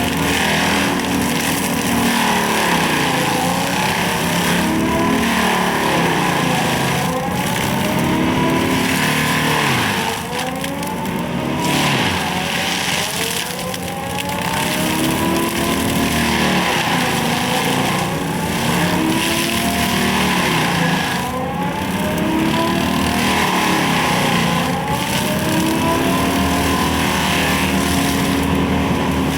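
Excavator engine and hydraulic mulcher drum running under load, the pitch dipping and climbing back again and again every few seconds as the rotor grinds into brush, stumps and soil.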